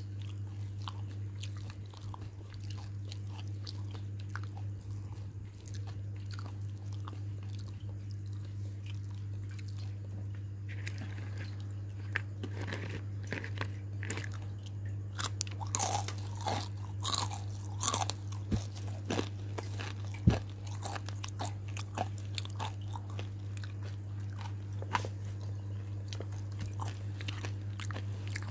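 Close-up crunching and chewing of crispy battered fried chicken, many short crackly bites, busiest in the middle with one sharp crack about twenty seconds in. A steady low hum runs underneath.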